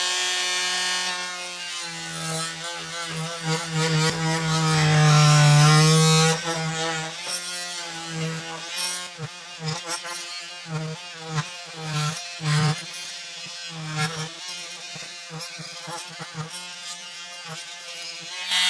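Porter-Cable oscillating multi-tool running with a sharp-toothed cutting blade, cutting into wooden baseboard trim: a steady buzzing whine with rasping cutting noise. The load rises and falls as the blade is wiggled back and forth in the cut, heaviest about four to six seconds in, then pulsing unevenly.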